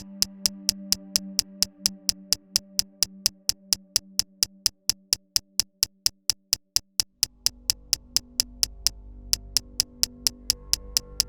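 Electronic background music: a fast, steady ticking beat, about four ticks a second, over held synthesizer chords. A deep bass comes in about seven seconds in.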